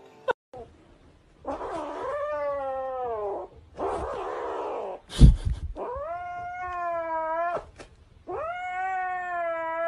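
Kitten yowling in long, drawn-out cries, three of them clear and wavering in pitch, with a harsher, rougher cry between the first two. A loud thump comes just after five seconds in.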